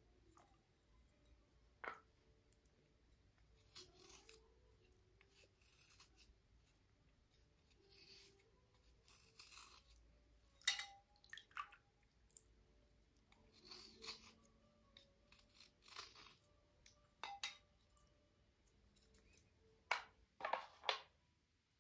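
Slate cubes being handled and cleaned: faint, irregular scrapes and clicks, with a sharper click about ten seconds in and a quick cluster near the end.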